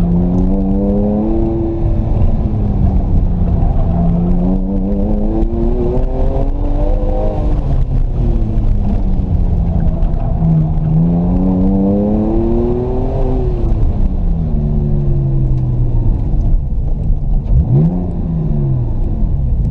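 Porsche 911 flat-six engine with the muffler deleted, heard inside the cabin, revving up and falling back again and again as the car accelerates and slows between cones. Near the end there is a quick rise and fall of revs as the driver's hand works the gear lever.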